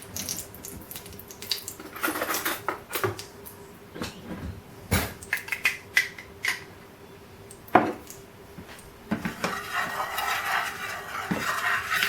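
Kitchen utensils, dishes and pans clinking and clattering in a series of sharp knocks, one louder knock about eight seconds in. A steady hiss starts about nine and a half seconds in and keeps going.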